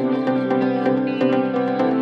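Background music: held notes over a quick, steady plucked pulse.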